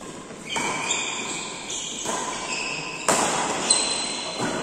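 Badminton rally in an echoing hall: rackets strike the shuttlecock about four times, the hit about three seconds in the loudest, with short high squeaks from shoes on the court between the hits.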